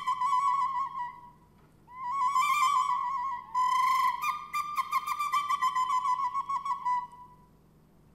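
A flute-like wind instrument playing warbling, trilled notes that hover around one high pitch, in three phrases with short breaks, then fading out about seven seconds in.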